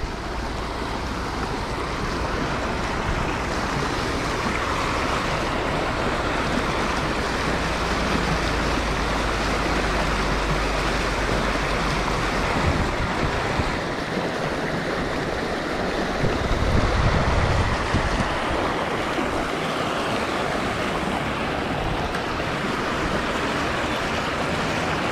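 Creek water rushing and splashing over a small rock ledge into a pool, a steady rushing sound. Wind buffets the microphone with a low rumble through the first half and a brief louder gust about two-thirds of the way through.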